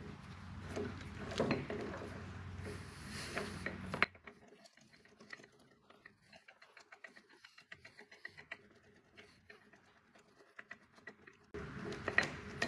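Metal clicks and light clatter of a lathe tailstock handwheel being turned by hand to wind the tailstock screw in, over a low hum. After about four seconds it falls to near silence with only faint ticks, and the noise comes back near the end.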